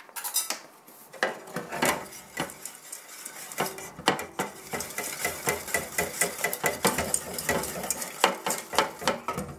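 A wire whisk stirring thick chocolate cake batter in a metal saucepan, clicking and scraping against the pan's bottom and sides. The strokes are scattered at first and become a quick, uneven rhythm after about three and a half seconds.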